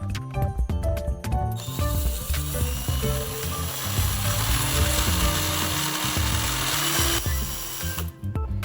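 Harsh, dense crackling hiss of metalworking from about two seconds in until near the end, over background music with a steady bass line.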